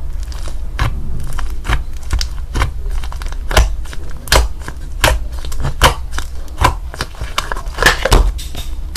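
Slime being worked by hand, giving a run of sharp, wet pops and clicks, about one or two a second.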